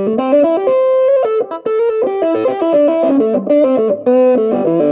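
Instrumental intro music led by a plucked guitar, playing a quick line of changing notes and chords.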